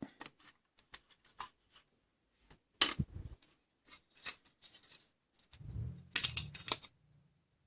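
Irregular small clicks, taps and scrapes of a die-cast toy car being handled and taken apart, metal and plastic parts knocking against each other. The loudest clicks come about three seconds in and in a quick cluster near the end.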